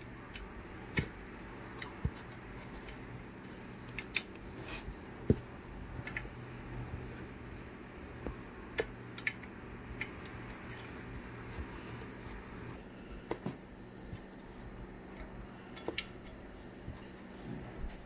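Irregular small metallic clicks and taps of a hex key and socket-head screws being worked on a subwoofer's tinsel-lead terminal block. A low steady hum runs underneath.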